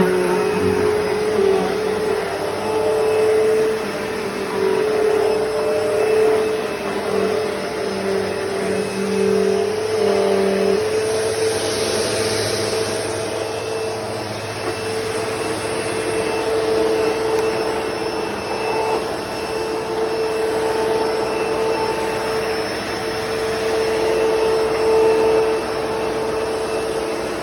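Hoover Deluxe Elite Rewind vacuum cleaner running steadily, its motor holding a steady whine over the rush of airflow. A lower hum drops out about eleven seconds in.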